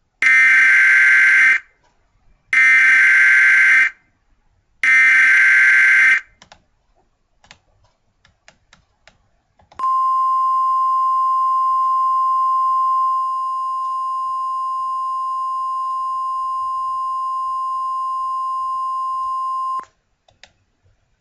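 Emergency Alert System alert: the digital SAME header sent three times as harsh screeching data bursts of about 1.5 s each, a second apart, then a steady single-pitched attention tone lasting about ten seconds that drops a little in level partway through and stops abruptly. A few faint clicks come between the header and the tone.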